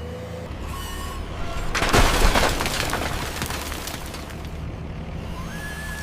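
A loud crash about two seconds in, dying away over about a second, over a steady low hum, with a few short gliding tones.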